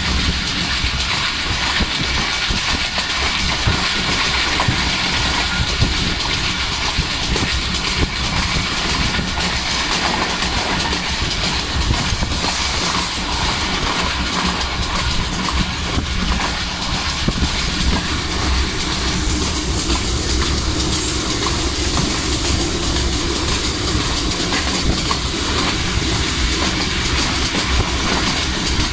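Moving passenger train heard from inside a coach: a steady rumble of wheels on the track with the clickety-clack of rail joints.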